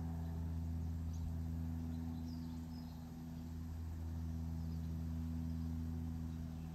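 Steady low mechanical hum, with a few faint, short, high bird chirps over it.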